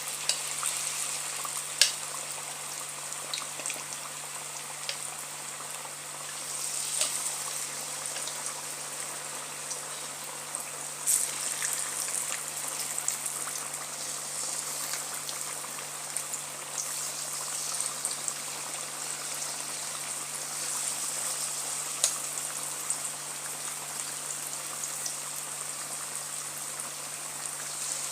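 Batter-coated potato slices deep-frying in hot oil: a steady sizzle with scattered crackles and a few sharper pops.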